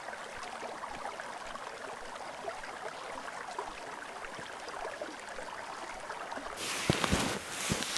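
A small stream trickling and gurgling through a gap in deep snow, a soft steady water sound. Near the end a louder rushing noise with a few sharp clicks cuts in over it.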